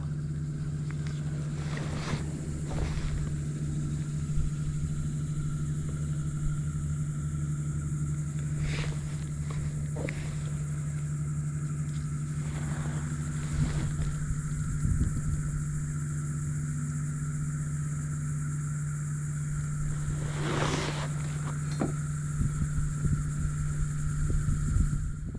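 A small motor running steadily, a constant hum with a thin high whine that holds one pitch throughout. A few brief knocks come through over it.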